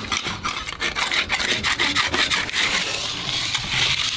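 Barnacles being scraped by hand off the bolt heads on the bottom of a lobster boat's skeg: quick rasping strokes, turning into a longer steady scrape near the end.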